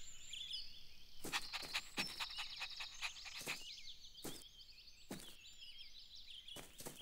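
Faint outdoor ambience of birds chirping, many short quick calls overlapping, with a scattered series of light knocks or taps.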